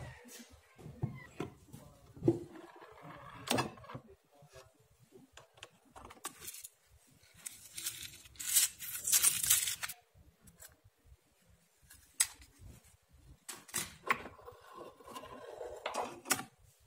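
Small handling sounds: a string of separate clicks and knocks, then a small metal tin of gramophone needles being handled and opened, with a louder scraping, jangling rattle about eight to ten seconds in.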